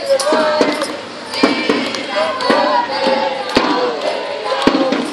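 A group of people singing and calling out together, with some notes held, over a sharp knock that comes about once a second.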